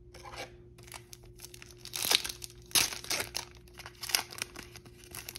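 A Battle Pack 3 booster pack's foil wrapper crinkled and torn open by hand: an irregular run of crinkles and tearing crackles, loudest about two, three and four seconds in.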